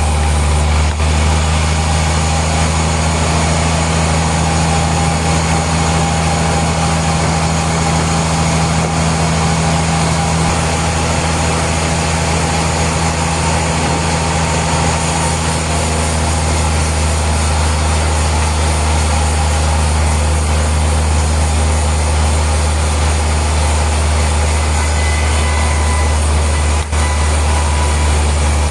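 Sawmill machinery running steadily, a loud low hum under a constant mechanical din, with a couple of brief clicks near the end.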